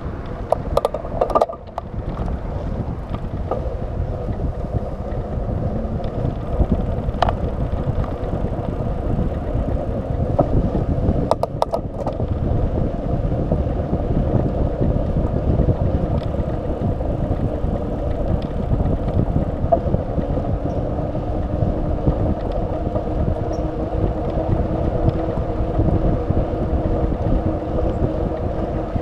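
Wind rushing over a bicycle-mounted camera's microphone as the bike rolls along pavement, with a steady tyre hum under it. A few sharp clicks and knocks from the bike come through, most of them near the start and about halfway through.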